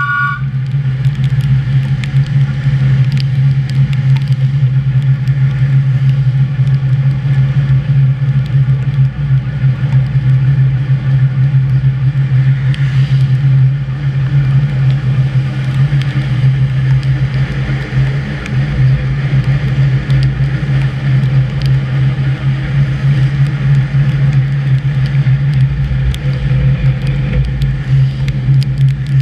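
HÉV suburban electric train running, heard from the driver's cab: a steady low hum from the drive over wheel-on-rail rumble, with scattered sharp clicks. A high tone with several pitches cuts off a moment after the start.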